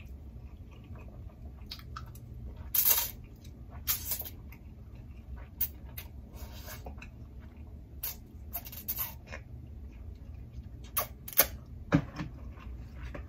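Close-up eating sounds from a crawfish and shrimp seafood boil: scattered short clicks, cracks and smacks, with a few brief louder hissing bursts about three, four and eight to nine seconds in.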